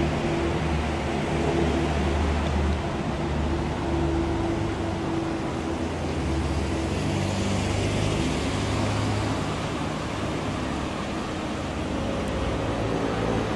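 Steady city traffic noise with a low engine rumble and hum. Near the end, a car's engine rises as it passes close by.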